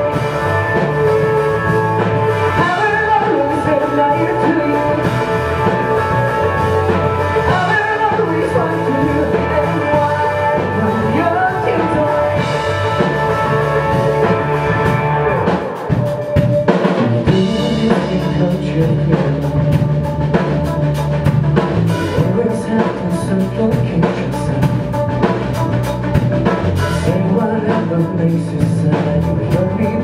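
Live rock band playing: electric guitars, bass guitar and drum kit, with a male lead vocal. The band thins out briefly about sixteen seconds in, then the full band comes back in.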